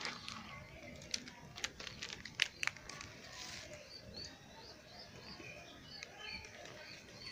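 A small bird chirping over and over, short high chirps about twice a second, starting about four seconds in. Before that come a few sharp clicks and rustles, the loudest about two and a half seconds in.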